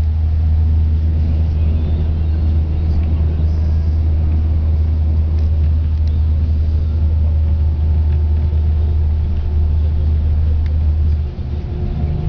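Coach engine and road noise heard inside the passenger cabin while the bus is moving: a loud, steady low rumble that dips briefly near the end.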